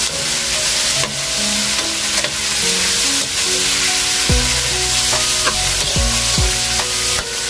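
Okra, potatoes and onion sizzling in a hot steel wok while a metal spatula stirs and scrapes them. Background music with held notes runs underneath, and from about four seconds in it adds deep bass notes that fall in pitch.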